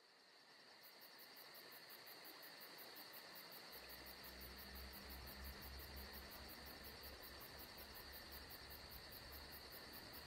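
Faint outdoor ambience of insects chirring steadily, with a rapid, even pulsing high in the sound, fading in at the start. A low rumble joins about four seconds in.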